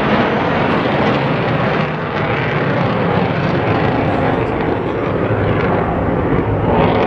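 Steady engine noise of a display jet flying overhead.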